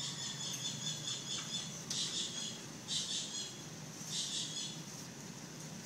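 Newborn kittens giving thin, very high-pitched mews, about four short cries roughly a second apart.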